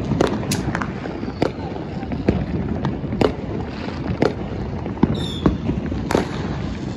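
Neighbourhood fireworks going off: a dense, irregular run of sharp bangs and pops over a continuous low rumble of more distant explosions, with a brief whistle a little after five seconds in.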